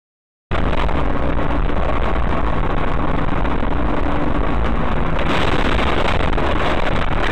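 Loud, steady road and engine noise inside a moving car, picked up by a dashcam's own microphone, starting abruptly about half a second in after silence.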